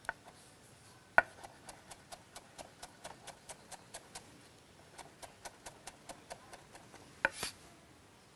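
A kitchen knife chopping garlic chives on a cutting board: quick, even strokes at about four a second in two runs with a short pause between, a louder knock at the start of the first run and another near the end.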